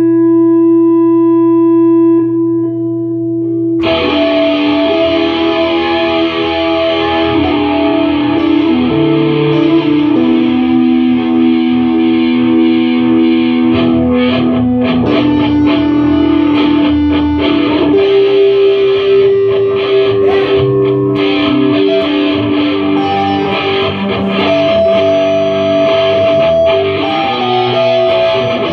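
Electric guitar played through distortion and effects. It opens on one long held note, then about four seconds in a dense wash of sustained, overlapping notes begins and shifts from pitch to pitch.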